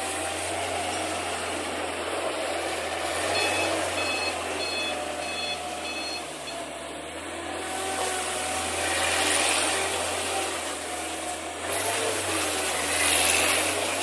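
R&L JC60 skid steer loader's engine running steadily as it drives and turns, with its reversing alarm beeping about five times a few seconds in. A rushing hiss swells twice in the second half.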